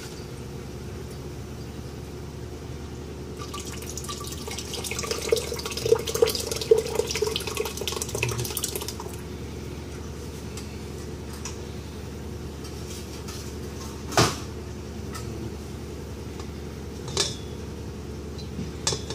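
Thick makgeolli with its rice being poured from a glass jar into a cheesecloth-lined strainer, splashing for about five seconds starting a few seconds in. A sharp knock follows a few seconds later, and a fainter one near the end.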